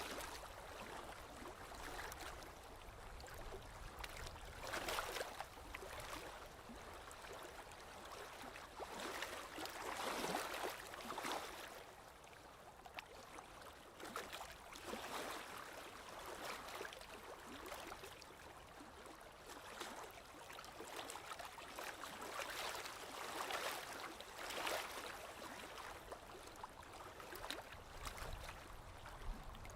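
Small waves lapping and splashing gently against a lake shore, in soft irregular swells a couple of seconds apart.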